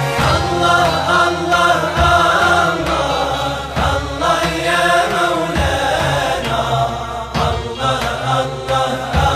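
Devotional Islamic nasheed in the dhikr style: voices chanting a melodic refrain together, with a deep drum beat about every two seconds.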